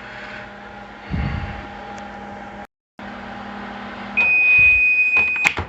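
Microwave oven running with a steady hum, then stopping with one long, high beep as the cooking time runs out, followed by a few sharp clicks.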